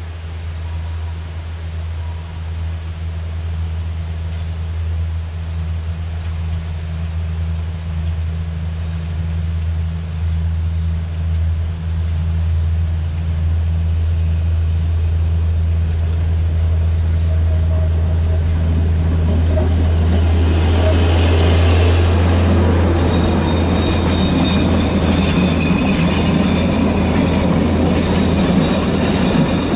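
Narrow-gauge diesel locomotive of the Alishan Forest Railway hauling a cargo train: its engine drones steadily and grows louder as it approaches. About two-thirds of the way through, the train comes close and the wagons roll past with a rattling rumble and high-pitched squealing of wheels on the curved track.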